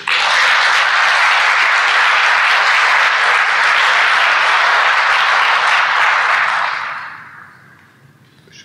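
Audience applauding, steady and loud for about six seconds, then dying away.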